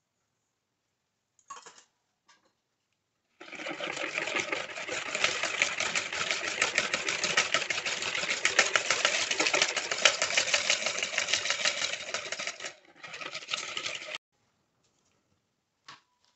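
Wire balloon whisk beating an egg-yolk batter in a plastic mixing bowl: fast rattling strokes against the bowl for about nine seconds, a brief pause, then a short second burst.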